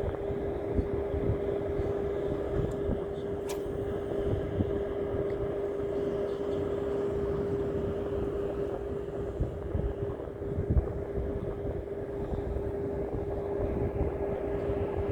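A steady engine-like hum holding one pitch, over a rough low rumble like wind on the microphone, with a single sharp click about three and a half seconds in.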